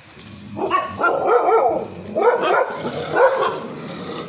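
Street dogs barking and yelping at one another in a standoff, in three loud bouts starting about half a second in.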